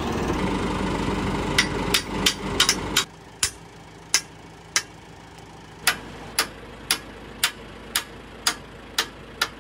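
Hammer blows on steel: sharp, ringing strikes. A few come about one and a half seconds in, then a steady run of about a dozen blows, roughly two a second. For the first three seconds an engine runs steadily under the blows, then cuts out.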